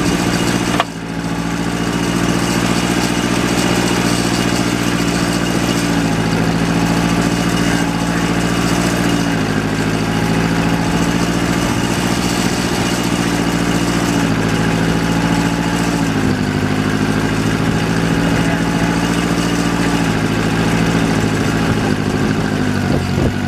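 John Deere 1010 tractor engine running steadily, its speed shifting slightly in small steps a few times, with a brief dip about a second in.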